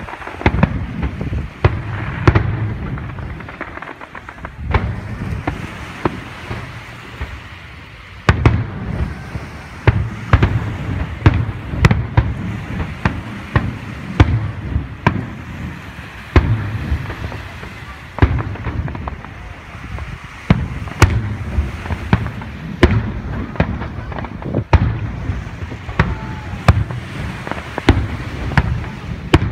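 Aerial firework shells bursting one after another: sharp bangs, each followed by a rolling, echoing rumble. After a few seconds the bursts thin out for a short lull, then come again about every second.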